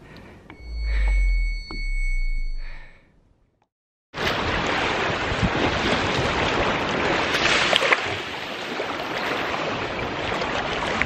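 A deep rumble swells twice under a thin, steady high ringing tone, then dies away to silence. About four seconds in, small sea waves start washing steadily onto a sand and pebble beach.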